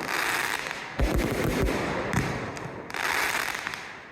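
Fireworks display: a sudden salvo of low booms about a second in, with hissing crackle between the bursts and another salvo starting at the very end.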